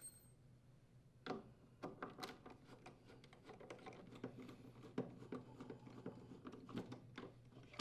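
Faint clicks and small taps of a hand screwdriver turning out the mounting screws of a gas furnace's draft inducer assembly, with a few sharper ticks spread through.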